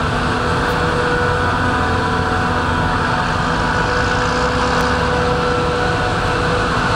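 Diesel farm tractor pulling a silage trailer in a maize harvest, its engine running steadily under load with a constant low drone and steady humming tones. It may be mixed with the other harvest machinery working alongside.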